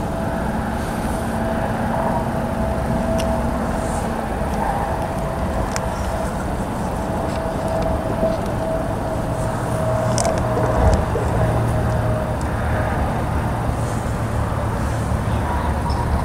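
Steady road and engine noise of a car on the move, with a low hum that grows stronger about halfway through.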